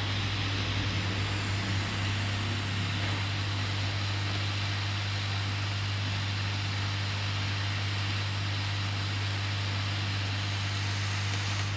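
Hot air rework gun blowing a steady hiss of hot air onto the circuit board to melt the solder and free a keypad phone's charging jack, over a steady low electrical hum.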